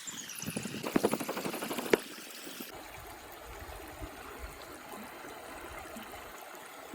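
Outdoor cooking of a chicken curry: about two seconds of rapid clattering and crackling, then a steady hiss.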